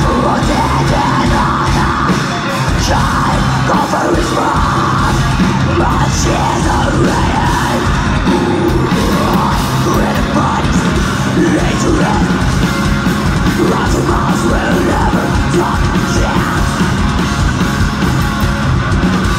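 Progressive metal band playing live: distorted electric guitars, bass guitar and drum kit, with a female vocalist singing into a microphone over them.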